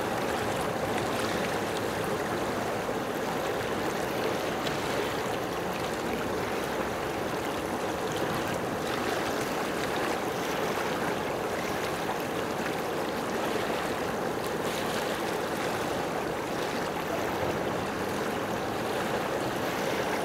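Steady rushing water, an even wash with no breaks.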